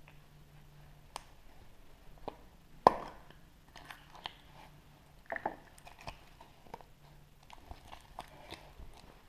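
Hands opening a chocolate surprise egg: scattered crinkles and clicks, with one sharp crack about three seconds in and a second burst of cracking a little after five seconds.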